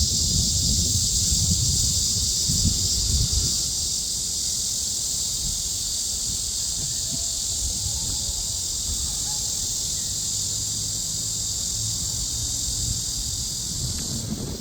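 A chorus of cicadas buzzing in one steady, unbroken high drone, over a low rumble of wind on the microphone.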